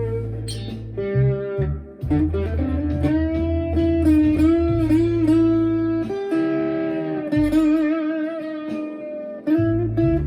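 Electric guitar played through a Marshall MG15CFX practice amp: a single-note lead line with held notes, bends and wide vibrato, over steady low notes.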